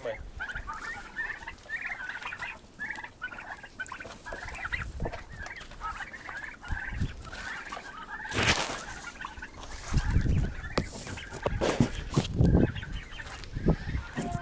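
Chickens clucking, many short calls throughout. Loud rustling and knocking noises cut in about eight seconds in and again several times later.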